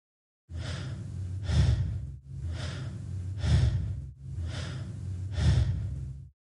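Sound effect of labored breathing: three slow, strained breaths about two seconds apart, each swelling to a peak, standing for the difficulty breathing caused by histamine-driven bronchoconstriction in an allergic reaction.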